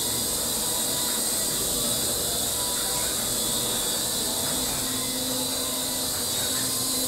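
A 3.5-channel infrared micro RC helicopter in flight, its rotors and small electric motors making a steady high hissing whir. A low steady hum joins in about four and a half seconds in.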